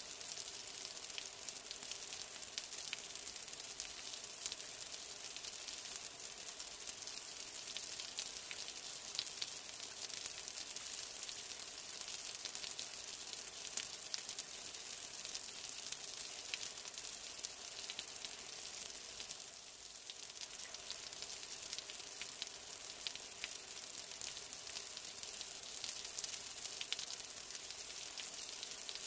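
Steady rain falling: a fine, even hiss sprinkled with many small drop ticks, easing briefly a little before two-thirds of the way through.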